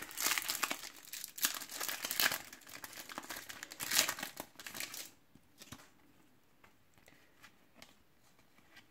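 Foil wrapper of a Topps Match Attax card pack being torn open and crumpled, crinkling for about five seconds; after that only a few faint taps as the cards are handled.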